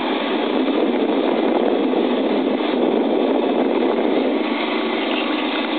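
Steady rushing wind noise on the camcorder's microphone, high in the air under a parasail.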